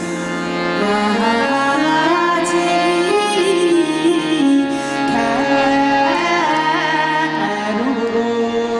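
A woman singing a slow melody that wavers and bends in pitch, coming in about a second in over steady held accompanying notes.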